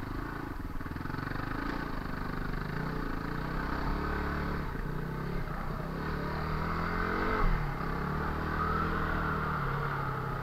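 Yamaha WR250R's 250 cc single-cylinder four-stroke engine under way on a dirt trail, its pitch rising and falling with the throttle. About seven seconds in it revs up and drops back suddenly, with a brief louder moment at the peak.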